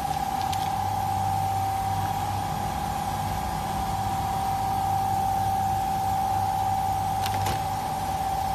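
Diaper packing machine running: a steady high whine over a low hum, with a few faint clicks, two of them close together near the end.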